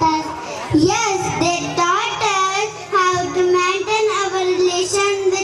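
Young girls singing into handheld microphones, a high child's voice in short held and gliding phrases.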